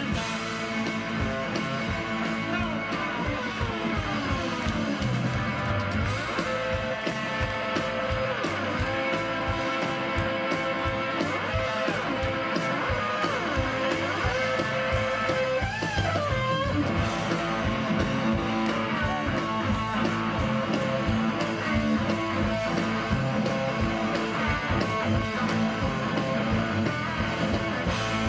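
Live blues band playing an instrumental stretch: an electric guitar takes the lead with bent, sliding notes, about 4 to 6 seconds in and again around 16 seconds, over drums and bass guitar.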